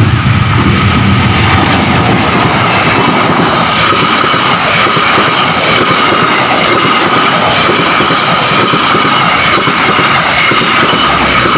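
Argo Wilis express passenger train passing close by: its coaches' wheels run loudly and steadily over the rails with a continuous clatter, and a steady high ringing tone rides over the noise.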